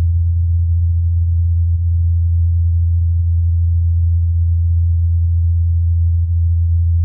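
Steady low hum of the Ingenuity Mars helicopter's coaxial rotors in flight, a single deep pitch that holds without change.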